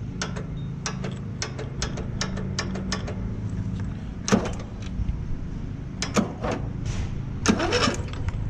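Old lawn tractor's electric starter turning the engine over as the key is bumped, a fast run of ticks in the first few seconds and a few sharper clicks later. The starter solenoid is now engaging through a jumper wire that bypasses a faulty safety switch.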